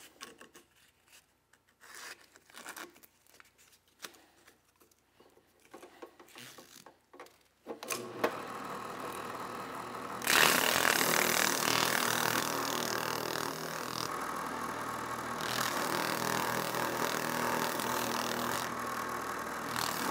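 Sandpaper rustling and clicking as it is wound onto a drill press's split-shaft arbor. About eight seconds in, the drill press motor starts and runs with a steady hum. From about ten seconds, a loud, even scraping of the spinning 240-grit sandpaper roll against the metal of a revolver grip frame, easing briefly twice as the part is shifted.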